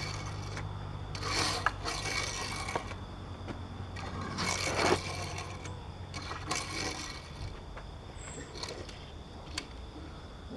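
Die-cast Hot Wheels Corvette C7 Z06 toy car being pushed into drifts, its small wheels scraping and rolling across the surface in several swishes about a second long.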